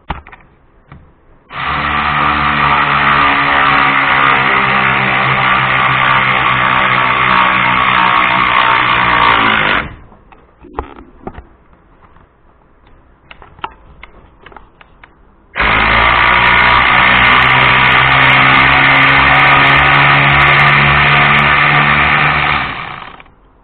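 Cordless 3/8-inch electric ratchet running a bolt on a fresh battery: two steady motor whines of about eight seconds each, with a pause of a few seconds between them filled with small clicks.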